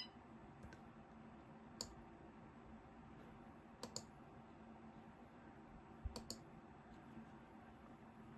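A few faint, sharp clicks over quiet room tone: one about two seconds in, one about four seconds in, and two close together a little after six seconds.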